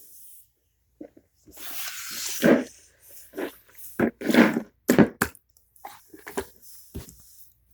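Irregular wet squishing and splashing as a toddler's hands work a squashed strawberry in a small bowl of water, a string of short uneven sounds with a longer splashy stretch about two seconds in.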